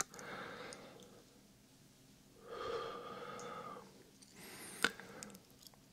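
A person breathing softly right at a binaural microphone: three slow breaths, the middle one the loudest, with one short click near the end.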